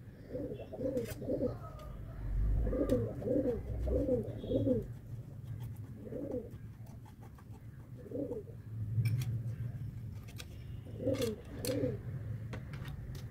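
A dove cooing over and over in short phrases of a few soft notes, over a low steady hum. A few sharp clicks come in between, from a metal spoon scraping dry clay.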